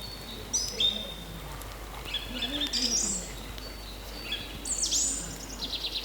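Several birds chirping and calling in quick, overlapping phrases, with a fast rattling trill starting near the end.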